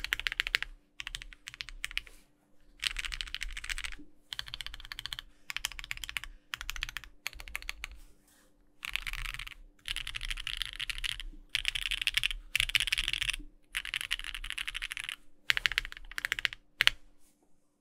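Typing on a Bakeneko60 mechanical keyboard with an aluminium plate and no foam, fitted with lubed and filmed Thic Thock Marshmallow linear switches on 60 g springs and GMK ABS keycaps. Keystrokes come in bursts of a second or two with short pauses between.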